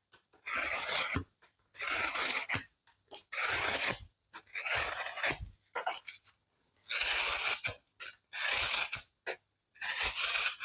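Slipjoint pocket knife blade slicing through thin cardboard from a cat food box: a series of about eight scraping, tearing cuts, each under a second, with short pauses between them.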